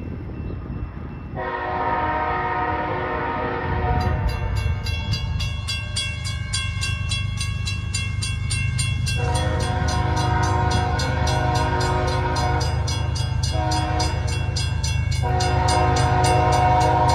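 Freight locomotive's air horn sounding a multi-note chord in long blasts, with a short blast about three-quarters of the way through, over the low rumble of the approaching diesel locomotives that grows from about four seconds in.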